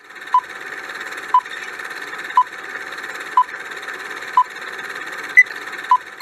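Countdown-timer sound effect: short electronic beeps once a second over a steady hiss, with a higher-pitched beep near the end followed quickly by one more.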